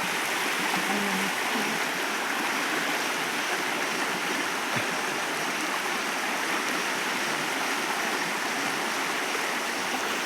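River water rushing steadily over rocks, an even, unbroken wash.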